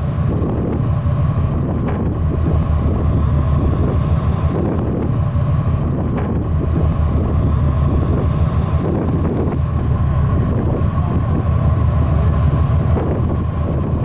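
Wind buffeting the microphone on a moving ferry's deck over the steady low drone of the ferry's engines, with a steady higher hum running through it.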